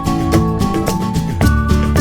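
Upbeat music with a steady beat and plucked guitar.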